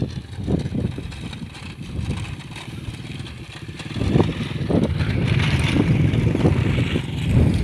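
Wind buffeting the microphone in irregular low gusts, with a hissing rustle that grows louder about four seconds in.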